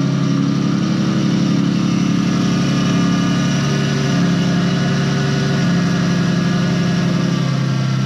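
A car engine idling steadily, its note shifting slightly a few times.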